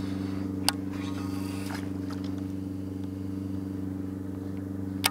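Steady engine drone held at one even pitch, with two sharp clicks, one about a second in and one near the end.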